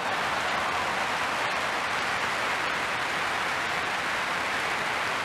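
Tennis crowd applauding loudly after a point, the applause swelling up right at the start and then holding steady.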